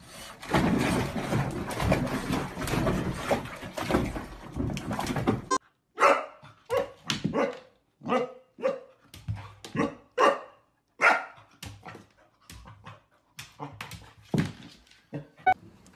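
A puppy splashing in a bubble bath, a dense rush of water for about the first five seconds. Then, after a brief gap, a golden retriever puppy barking many times in short, separate yaps, set off by its own reflection in a mirror.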